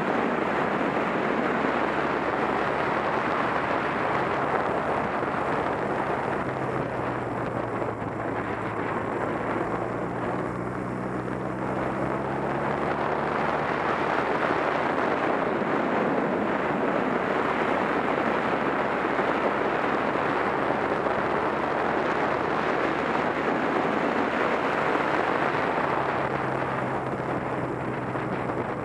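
Wind rushing over the microphone on a moving Honda Rebel 250 motorcycle, with the hum of its parallel-twin engine underneath. The engine pitch rises slowly about a quarter of the way in as the bike gathers speed, then holds steady.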